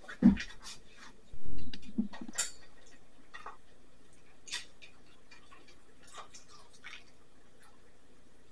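Two dull thumps in the first couple of seconds, the second the loudest, then scattered light clicks about once a second as a conure nibbles at a piece of food held in its foot.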